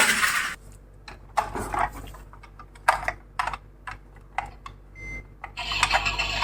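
Miniature toy cars clattering: a loud rush at the start, then a string of irregular sharp clicks and knocks.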